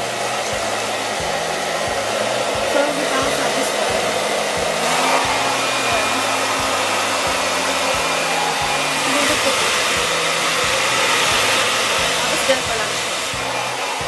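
Philips DryCare Pro hair dryer blowing steadily while drying long hair: an even, loud whoosh of air.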